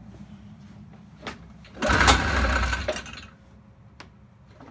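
1979 Yamaha Enticer 340 snowmobile's two-stroke engine being started: after a low hum, it cranks and fires loudly for about a second, starting about two seconds in, then dies back down, during choke adjustments on a hard-starting engine.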